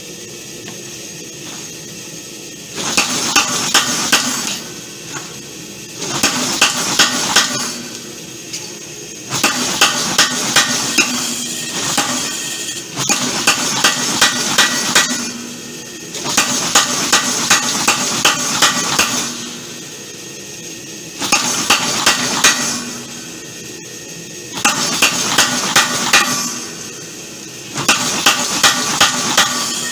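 Homemade power hammer pounding hot leaf spring steel, forging it into a billet: runs of rapid, even blows at about four a second, each run lasting two to three seconds, with short pauses between runs.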